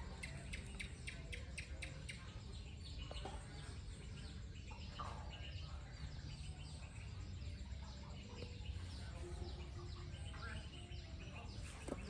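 Birds chirping: many short, high chirps that slide downward, in a quick run near the start and then repeating on and off, over a steady low rumble.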